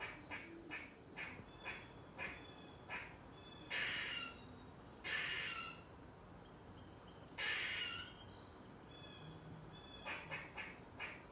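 Eastern gray squirrel alarm calling. It gives a run of short barking 'kuk' calls, about two a second, then three long raspy 'quaa' calls, then rapid kuks again near the end. This call warns of a predator or other threat.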